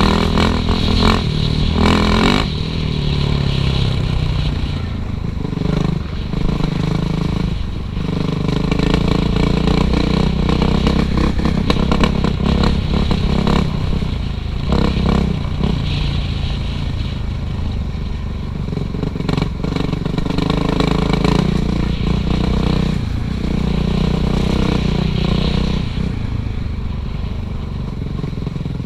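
Suzuki RM-Z450 dirt bike's single-cylinder four-stroke engine running hard on a trail, its pitch rising and falling again and again as the throttle opens and closes, with scattered knocks and clatter.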